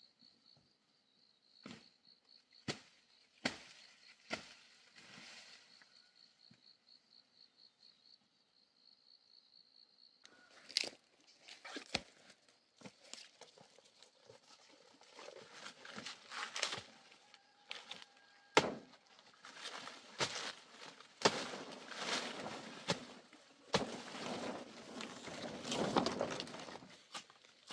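A faint high insect trill pulsing a few times a second, with a few scattered clicks. About ten seconds in, rustling of undergrowth and large banana leaves begins as someone moves through the plants, with footsteps and repeated sharp knocks.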